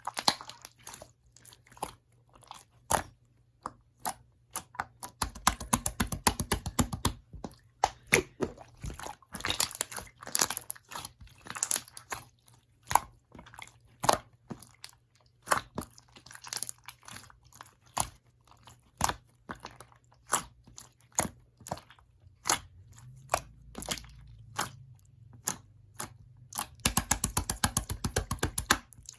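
Slime being pressed and squeezed by hand, giving sharp clicks and crackling pops, with fast runs of clicks about five seconds in and again near the end.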